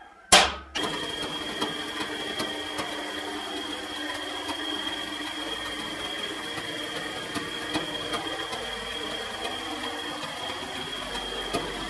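One sharp hammer blow on a centre punch, then a drill press running and drilling into a small metal part clamped in a machine vise. The drill runs with a steady high whine.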